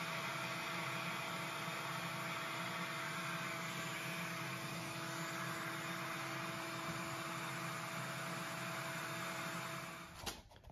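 Steady whir of a power-tool motor and shop-vacuum dust extraction running at a constant pitch with a faint whine, cutting off about ten seconds in.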